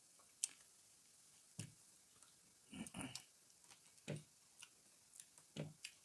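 Faint eating sounds: soft chewing and mouth noises with a few scattered short clicks and taps, the sharpest about half a second in.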